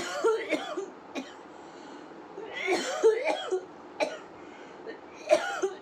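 A woman with a cold coughing in short fits: a run of coughs at the start, another longer run about two and a half seconds in, and a last one near the end, with single coughs between them.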